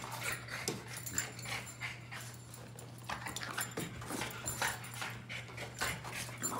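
Boston terriers whimpering and panting, a string of short, soft whines and snuffles, eager to play.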